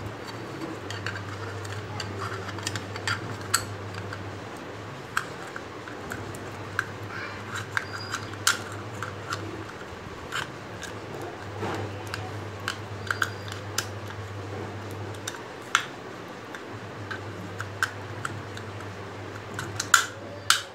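Irregular small clicks, taps and scrapes of small plastic and metal parts being handled and pressed together as an opened clone AirPods charging case is reassembled, over a steady low hum.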